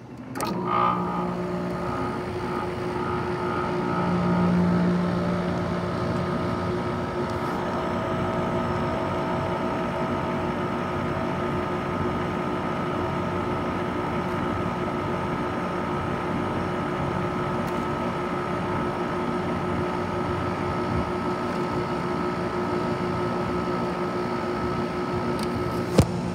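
A GE AJCQ mini PTAC air conditioner starting up about half a second in, then running steadily: fan blowing and its Matsushita rotary compressor humming with a few steady tones. A sharp click near the end.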